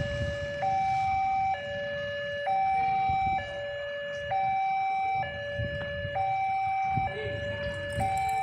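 Railway level-crossing warning alarm: an electronic two-tone signal alternating evenly between a lower and a higher note, each held just under a second. It sounds while the barriers are down, warning of an approaching train.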